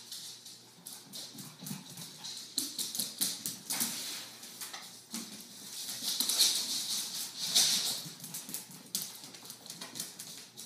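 Dogs' claws clicking and skittering on a hard vinyl-tile floor as they move about during a chase, in a stream of quick irregular ticks that swells into a louder scrabbling rush about six to eight seconds in.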